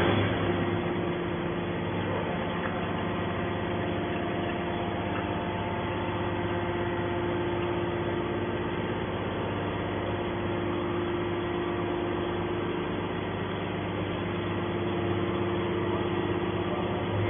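Hydraulic pump motor of a scrap metal baler press running steadily, an even mechanical hum with constant tones that hardly changes.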